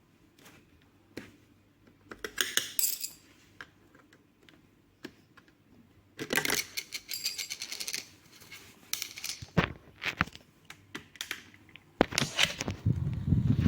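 Parts of a new electric fan being handled during unboxing: scattered sharp clicks with two bursts of small clattering, about two seconds in and again from six to eight seconds. A low rumbling noise begins near the end.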